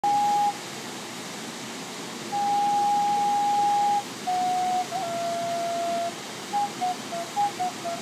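Native American flute tuned in G# playing a slow melody: a short note, a long held note, then a lower phrase with a small ornamental flick and a quick run of short notes stepping down. The steady rush of the waterfall runs behind it.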